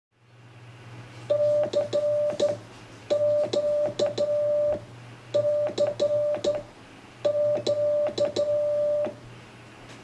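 Morse code sent as a CW tone: a steady mid-pitched beep keyed into dots and dashes, in four groups each a second or two long, over a low steady hum.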